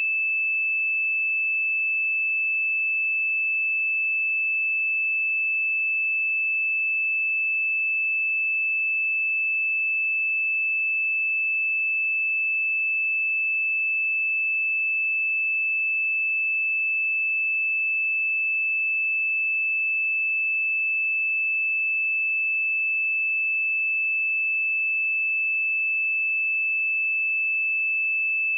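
A pure 2628 Hz sine-wave test tone, one steady high-pitched note held at constant level.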